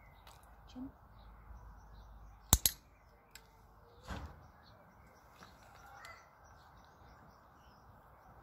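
A training clicker clicks about two and a half seconds in, a sharp double snap. About a second and a half later a hand rummages in a plastic tub of dry treats. Faint birdsong plays throughout.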